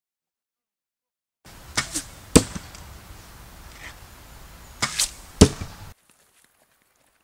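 Two arrow shots from a compound bow, about three seconds apart. Each is two quick sharp snaps followed a moment later by a louder sharp hit, the arrow striking the target. The sound cuts in and out abruptly.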